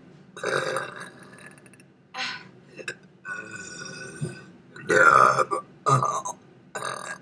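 A person burping repeatedly: a run of about five or six separate belches, the loudest about five seconds in.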